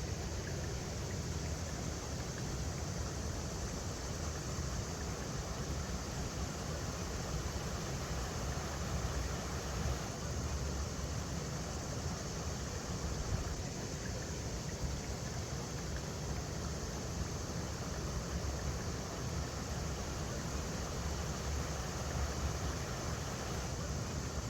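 River water flowing over rocks, a steady rushing with a low rumble underneath.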